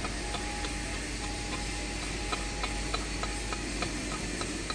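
Steady hiss of workshop background noise with a faint hum, and scattered light metallic ticks from a wrench and ratchet being worked on the cylinder-head bolts of a Yanmar engine.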